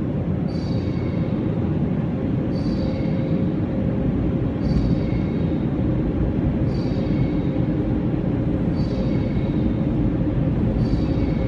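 Automatic car-wash dryer blowers running steadily, heard from inside the car, with a faint high whistle that comes back about every two seconds.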